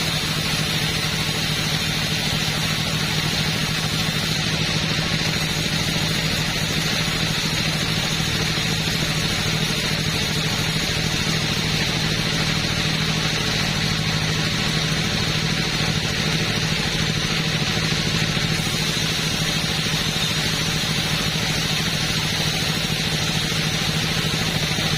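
Two-stroke chainsaw engine running at a steady high speed, with no change in revs.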